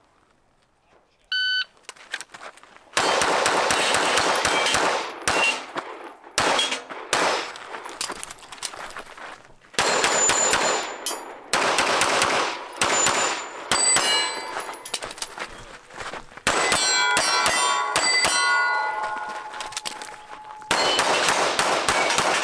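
A shot timer beeps once, then a pistol fires string after string of shots. Steel targets ring out as they are hit, leaving pitched rings between the shots.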